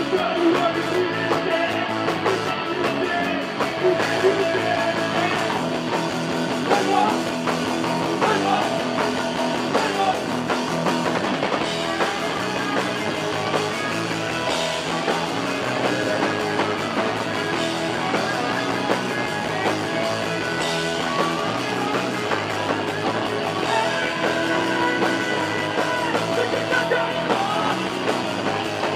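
Punk rock band playing live: electric guitars over drums and cymbals, loud and continuous.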